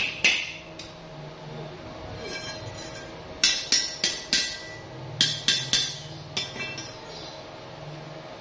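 Short runs of sharp metallic knocks, steel rod and tubes being tapped against metal, each knock ringing briefly; three or four knocks come in quick succession, twice.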